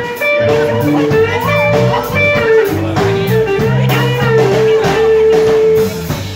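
Live blues band playing: electric guitar, bass and drum kit, with the guitar playing long held notes that bend in pitch.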